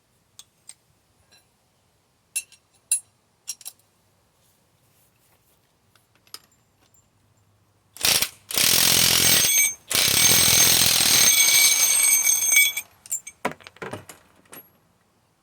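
Metal tool parts clinking a few times, then about eight seconds in a power impact wrench runs loudly in two bursts, the second about three seconds long, with a high whine over the hammering, while driving the bushing press tool's screw. A few more clinks follow.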